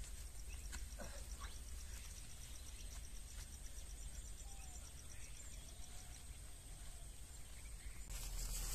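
Insects chirping outdoors in a fast, even pulse over a steady high buzz, which stop about six seconds in. Near the end a louder rustling starts.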